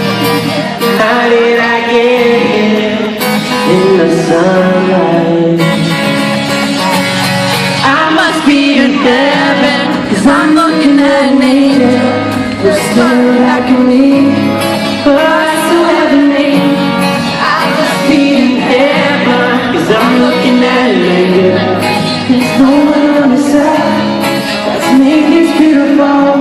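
A male singer singing a slow pop love song live over instrumental accompaniment, his voice carrying in a large hall.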